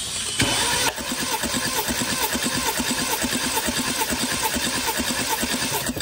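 BMW N20 2.0 L turbocharged four-cylinder being cranked over by its starter during a compression test, with an even, rhythmic chugging from the compression strokes that stops at the end. The cylinder under test, number 2, holds good compression, so the crank labours on its stroke.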